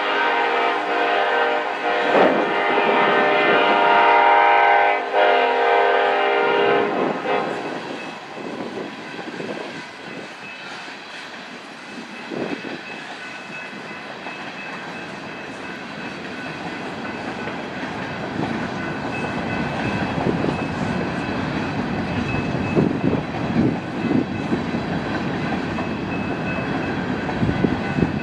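Air horn of a BNSF SD70ACe locomotive blowing a multi-note chord for about seven seconds, then stopping. After that, the coal train's cars roll past, wheels clacking over the rail joints, getting louder near the end.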